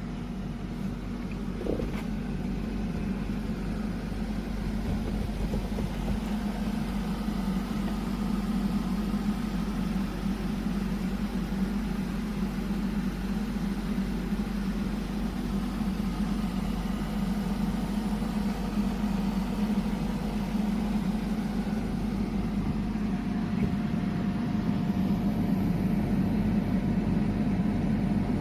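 Portable spot air conditioner running: a steady compressor and fan hum with airflow noise. A faint higher steady tone joins near the end.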